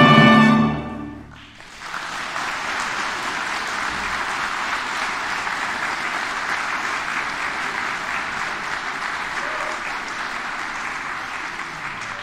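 A held final chord of instrumental music dies away about a second in, then the congregation applauds steadily.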